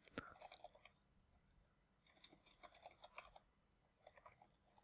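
Faint computer keyboard typing: scattered keystrokes in short runs, with pauses between.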